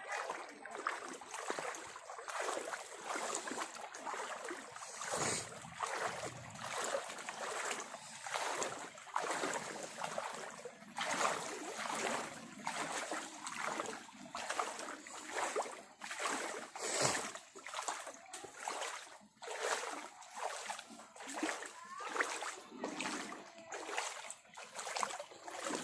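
Repeated splashing of legs wading through shallow floodwater, a splash every second or so.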